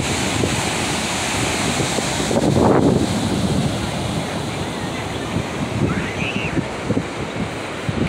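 Ocean surf washing steadily onto a flat sandy beach, mixed with wind buffeting the microphone; the wash swells louder about two and a half seconds in.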